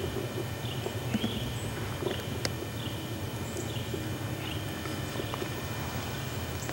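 Quiet woodland ambience: a steady low hum under faint, short high chirps that recur every half second to a second, with a few soft clicks, one sharper near the middle.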